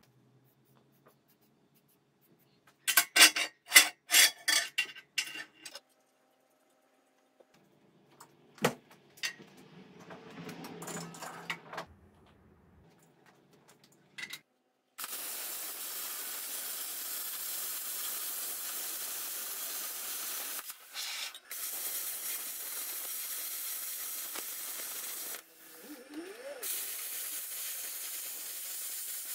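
Metal clattering and knocks from a steel plate and tools being handled on a steel table. Then a plasma cutter runs for about fourteen seconds with a steady hiss, broken twice briefly, as it cuts a circle out of a rusty steel sheet.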